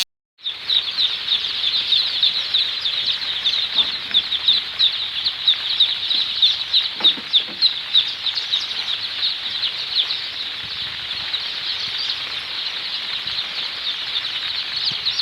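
Flock of Sonali chickens in a brooding house, many birds cheeping at once in a dense, continuous chorus of short, high calls.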